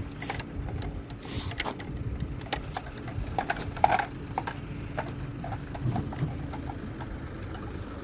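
A steady motor hum runs under irregular clicks, knocks and rustling as a beef hide is pulled off a hanging carcass, with a louder knock about four seconds in.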